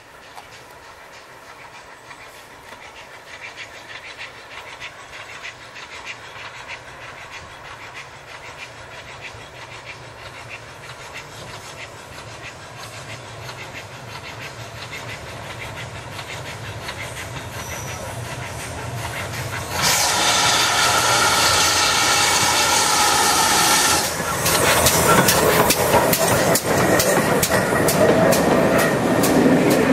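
Steam-hauled passenger train approaching from a distance and growing steadily louder. About two-thirds of the way in it turns suddenly loud with a hiss of steam as the engine passes close. Then the coaches rumble past, their wheels clacking over the rail joints.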